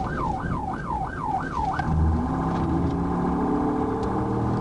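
Police car siren on yelp, sweeping up and down fast, about four times a second. About two seconds in it switches to a steady, many-toned horn note.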